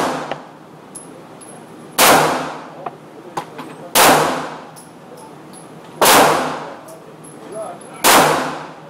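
Beretta 92FS Inox 9mm pistol fired four times at a slow even pace, about two seconds apart, each shot with a long echoing tail.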